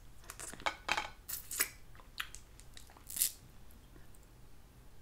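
Close-up eating sounds of Dungeness crab: meat being pulled from the leg shells and chewed, with a string of short wet clicks and smacks in the first two seconds and another about three seconds in.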